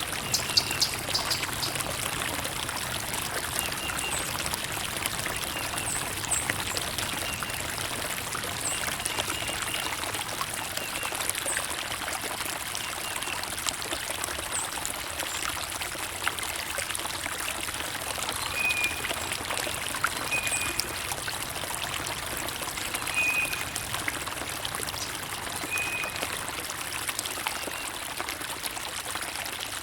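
Steady flowing, trickling stream water with small birds chirping over it: scattered high chirps, and a few short whistled notes in the second half.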